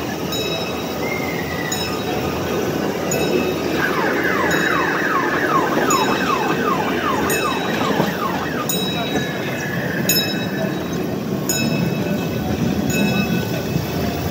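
A small amusement-park ride train runs along its track with a steady rumble and a sharp clack about every second and a half, as the wheels cross rail joints. From about four to eight seconds in, a rapid series of short falling siren-like tones sounds over the rumble.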